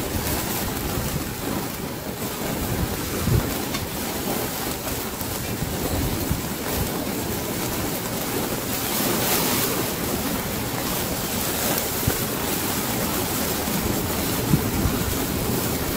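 Marinated fish sizzling in a hinged wire grill basket over a flaring charcoal fire: a steady hiss of oil and juices dripping onto the coals, with a few sharp crackles.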